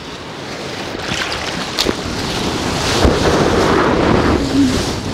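Ocean surf: a wave breaking and rushing, swelling from about a second in to its loudest near the end, with gusts of wind buffeting the microphone.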